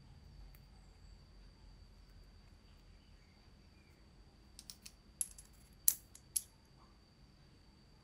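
A short run of sharp clicks and taps as small metal and wooden parts of a hand coffee grinder are fitted together by hand, the loudest about six seconds in.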